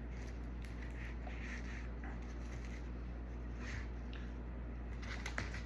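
Faint scuffing and rustling of hands working on a laptop's screen assembly, with a few small clicks near the end, over a steady low electrical hum.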